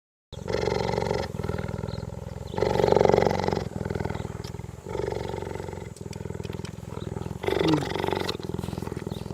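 Cheetah making a continuous low, rapidly pulsing rumble that swells and eases about once a second.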